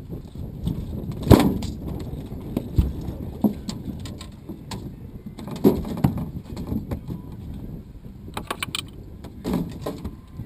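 Scattered knocks, thumps and rattles of gear on a pontoon boat's deck as a fish is landed and handled, over a steady low rumble; the loudest knock comes about a second in, with a quick run of clicks near the end.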